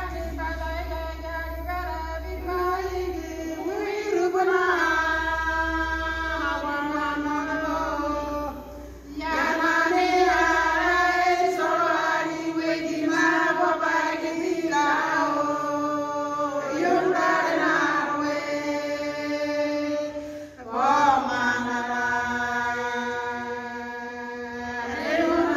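A group of women singing a church song together in long, held phrases, with brief pauses about nine and twenty seconds in.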